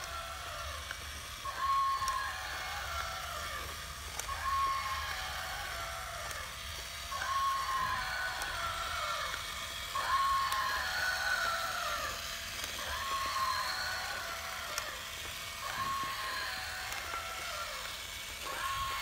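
Battery-operated walking toy mammoth: its small motor and gears run steadily while its built-in speaker plays an electronic mammoth call, a short tone then falling cries, repeating about every three seconds.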